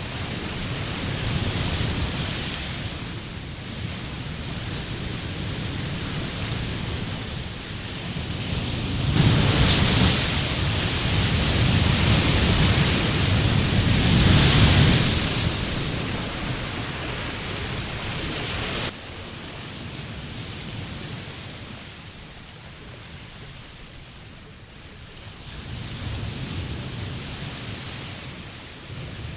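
Steady rushing noise of flowing floodwater, swelling louder around nine to fifteen seconds in, then dropping suddenly to a quieter rush a little past the middle.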